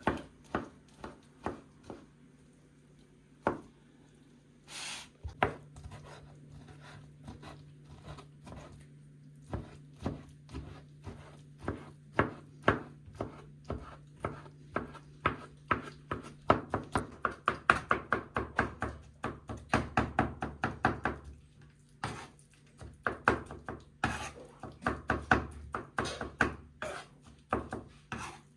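Knife chopping on a wooden cutting board: sharp repeated strokes, a few at a time at first, then a steady run of several a second that quickens in the middle.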